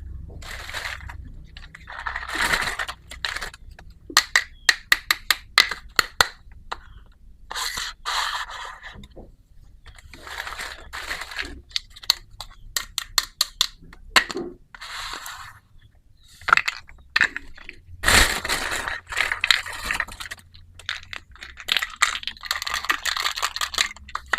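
Small plastic miniature toy kitchen pieces and their packaging being handled: bursts of crinkling and scraping, with a quick run of sharp clicks a few seconds in.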